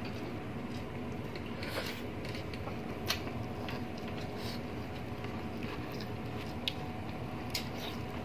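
Close-miked eating sounds of braised pork and noodles being chewed: soft chewing and mouth smacks, with a few short sharp clicks over steady background noise.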